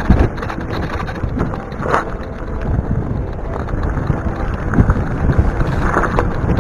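Wind buffeting the camera microphone on a fast mountain-bike descent, mixed with the tyres rolling and skidding over a loose dirt trail and the bike rattling over bumps.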